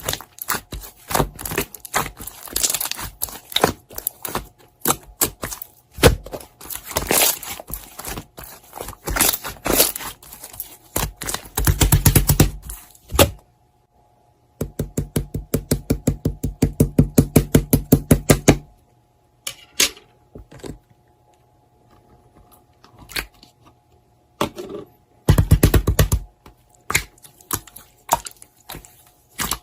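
Slime being pressed, poked and stretched by hand, giving dense clicking and crackling pops. Twice it turns into a run of fast, even presses, about five a second, then breaks off briefly before the clicking resumes.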